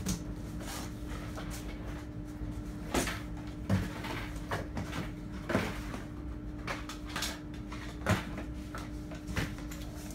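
Rummaging and handling: scattered knocks and clicks of hard objects being moved and set down, over a steady low hum.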